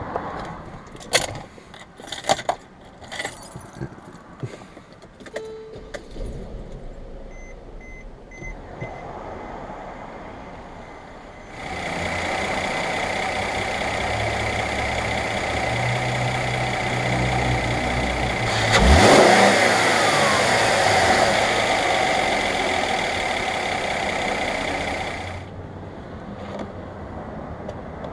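A few clicks and knocks, then a car engine starts up suddenly and runs steadily, with one quick rise in revs partway through, before it shuts off near the end. This is a 2012 Mercedes-Benz E350 being run with a newly fitted idler pulley, to check that the belt-drive whine is gone.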